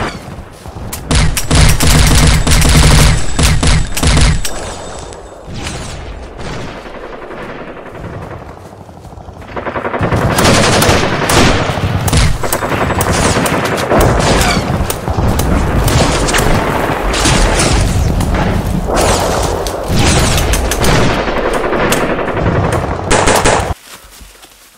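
Rapid automatic gunfire from rifles and machine guns in a sustained firefight. It eases off for a few seconds about halfway through, resumes heavily, then cuts off suddenly near the end.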